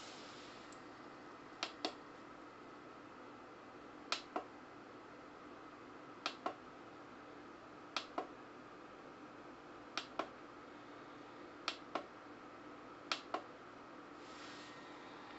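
A small dehumidifier running with a steady hum. Seven sharp double clicks come about two seconds apart over it.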